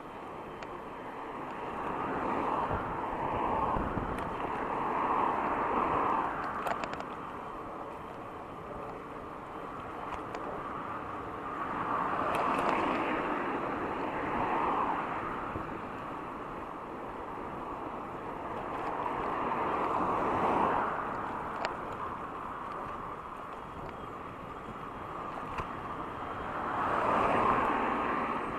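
Traffic heard from a moving e-bike on the road: vehicles pass four times, each swelling and fading over a few seconds, over a steady background of road noise, with a few faint clicks.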